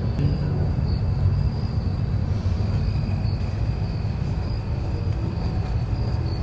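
A steady low rumble with a faint, thin high tone held over it, unchanging throughout.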